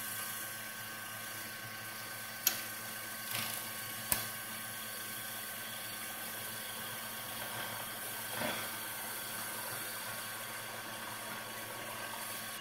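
Brother FS101 sewing machine's motor running at high speed, driving the bobbin winder as it fills a plastic bobbin with thread: a steady whir, with two sharp clicks about two and a half and four seconds in.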